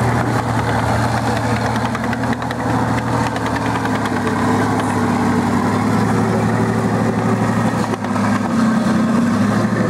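Tiger I-style tank driving on a dirt track: its engine runs with a loud, steady low drone, and a higher note swells now and then. Rattling clicks come through about two to three seconds in.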